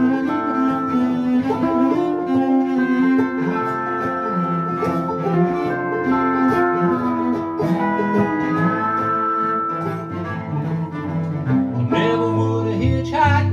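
Acoustic string band playing an instrumental passage: a bowed cello and a strummed resonator guitar under long held notes that slide in pitch, typical of a pedal steel guitar. A voice starts singing near the end.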